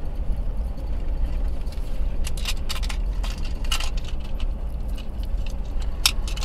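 Car interior road noise: a steady low rumble of a car driving slowly, with light clicks and rattles scattered irregularly from about two seconds in.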